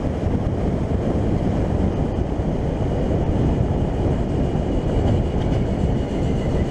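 Very loud 125cc moped engine and exhaust running at a steady speed, with wind rushing over the microphone.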